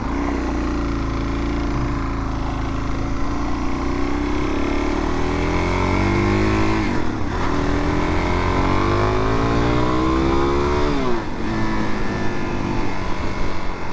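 Suzuki DR-Z400's single-cylinder engine accelerating through the gears: the revs climb, drop sharply at a shift about seven seconds in, climb again and drop at another shift near eleven seconds.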